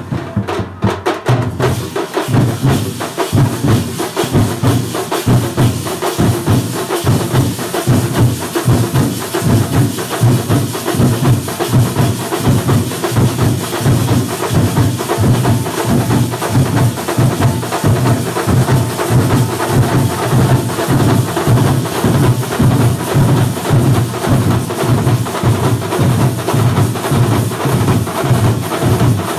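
Loud group drumming by two street drum troupes playing against each other: a fast, steady rhythm of deep drum beats with sharp stick strokes over them.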